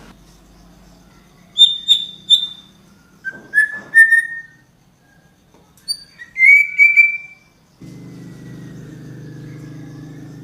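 A bird whistling clear notes in three short phrases of two or three notes each, the first phrase high, the second lower, the third in between. A steady low hum comes in near the end.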